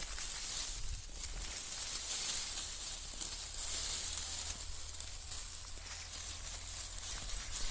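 Steady outdoor hiss with faint rustling, over a low rumble of wind on the microphone.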